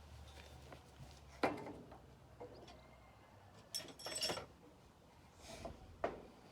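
A few scattered knocks and clicks and a short rattle, the sound of tools or objects being handled and set down. The sharpest knock comes about a second and a half in, and the rattle about four seconds in.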